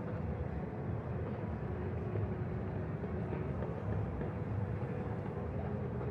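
Steady low rumble of distant city ambience, mostly far-off traffic, with no single sound standing out.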